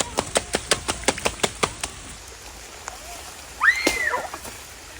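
A quick run of about ten sharp taps, about five a second, that stops about two seconds in, followed near the end by a child's brief high-pitched squeal that rises and falls.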